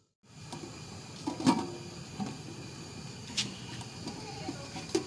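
Steel cookware being handled: three sharp metal clinks as a steel lid or plate knocks against a steel pot, the first, about one and a half seconds in, the loudest, over a low steady background.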